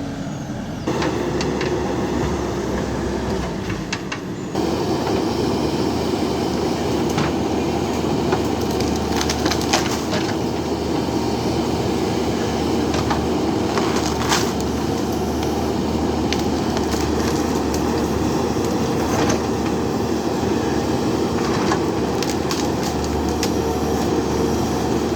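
JCB backhoe loader's diesel engine running steadily under load, with scattered knocks and scraping from the digging work. It gets louder about a second in and again about four and a half seconds in.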